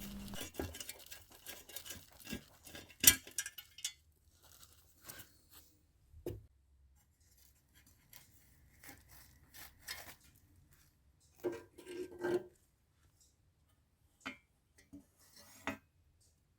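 Hand tools and loose metal engine parts being handled: scattered clicks, clinks and light scraping, with one sharp click about three seconds in and a cluster of knocks near twelve seconds.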